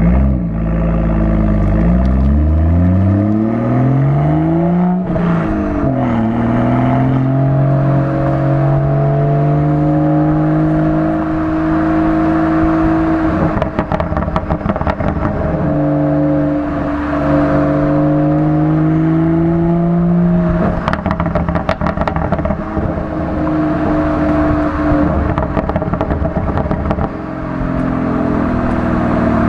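BMW 440i's B58 turbocharged inline-six with the M Performance Power and Sound Kit exhaust, accelerating with the pitch climbing, shifting up about five seconds in, then pulling and holding steadier revs, with rapid crackling in places before it climbs again near the end.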